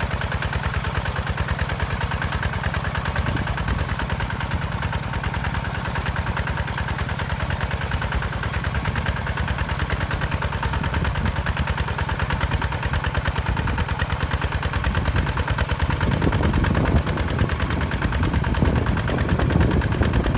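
HINOTA HG Gold 155 DI walking tractor's single-cylinder diesel engine running steadily under load, a rapid even chugging, as it pulls a disc plow through dry soil. In the last few seconds the sound grows louder and rougher.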